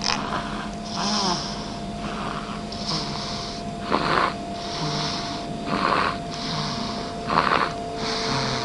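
Snoring: a series of noisy, rasping breaths every second or two, with a hissing, whistly breath between the louder snores.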